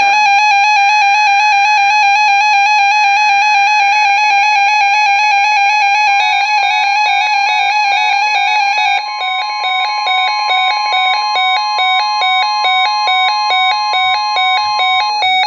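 Emergency Alert System attention signal: loud electronic alert tones stepping in a repeating, bell-like pattern. About six seconds in, a steady single tone joins underneath and holds until near the end.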